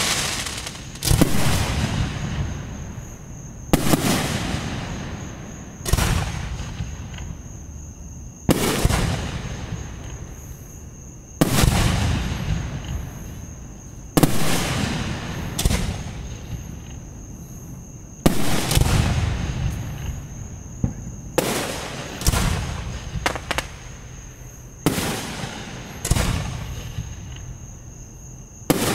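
Aerial fireworks shells bursting: a sharp bang every two to three seconds, each trailing off in a long rumbling echo. The bangs come closer together in the last third.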